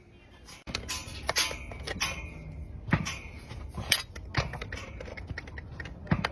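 Irregular sharp clicks and metallic clinks of farrier's tools working on a horse's hoof, over a low steady background noise that starts about a second in.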